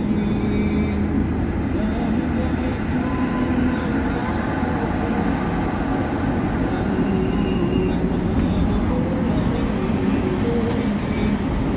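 Steady road and engine rumble of a car driving along a city road.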